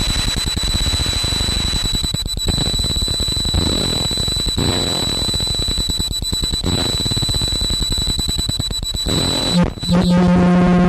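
Harsh experimental noise music: a dense, rapidly stuttering wall of noise over a steady thin high whine. About a second before the end it breaks off briefly and gives way to a loud, steady buzzing drone.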